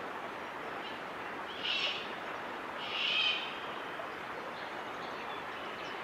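Two short, high bird calls, about two and three seconds in, over a steady background hiss.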